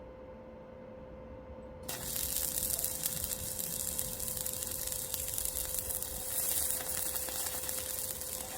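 Stick (arc) welding: the arc crackles and sizzles steadily for several seconds, starting about two seconds in and cutting off abruptly near the end. A faint steady hum runs underneath.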